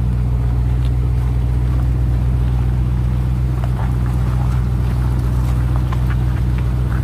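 Ram TRX's supercharged 6.2-litre Hemi V8 running steadily at a low, even speed as the truck creeps along. Faint scattered clicks of gravel come from under the front tyre.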